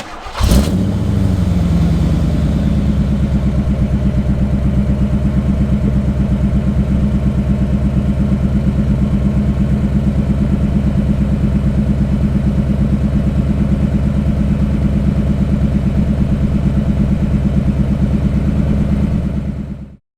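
A 1987 Corvette's V8 engine starting up, revving briefly as it catches about half a second in, then settling into a steady idle with an even, rapid exhaust pulse. It fades out near the end.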